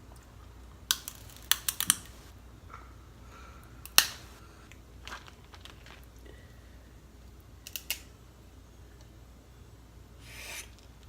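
Snow crab leg shells being cracked and snapped open by hand: a scattering of sharp cracks and clicks, the loudest about four seconds in, with a short breathy rush near the end.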